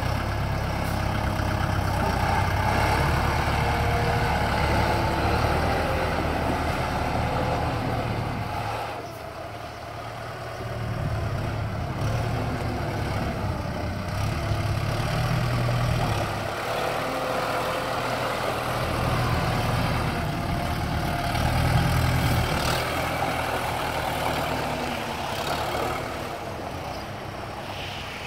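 Kubota M9540 tractor's four-cylinder turbo diesel running as the tractor drives and turns, the engine note swelling and easing, with a clear drop in level about nine seconds in before it picks up again.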